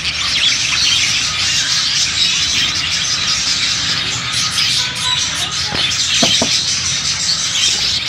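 A flock of budgerigars chattering and chirping all at once, a dense, unbroken mass of high calls, with a few louder single calls standing out about six seconds in.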